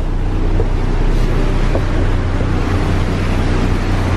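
Harbour ferry's engine running steadily with a deep rumble under the rush of its churning wake, with wind buffeting the microphone on the open rear deck.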